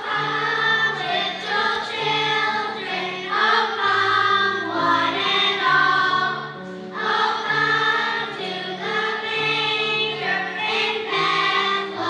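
Children's choir singing in unison, with low accompanying notes moving beneath the voices.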